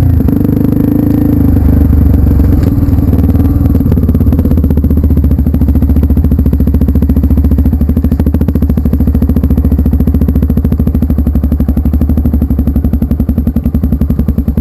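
Trail motorcycle engine running steadily close by at low revs, with an even, fast pulse.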